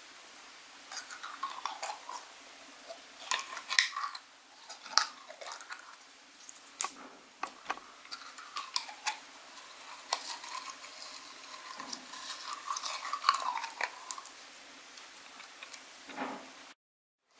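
Jelly slime being squished and kneaded by hand close to the microphone: an uneven run of sticky clicks and small wet pops.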